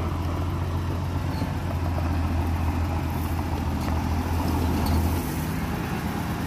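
Nissan Patrol Y60 engine running steadily through its stainless-steel exhaust; its note changes about five seconds in, the low hum giving way to a higher steady tone.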